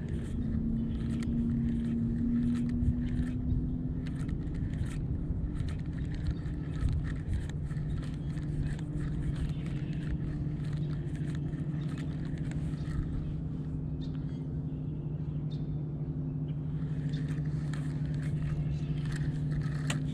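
Electric trolling motor on a bass boat running with a steady low hum, with scattered light clicks over it.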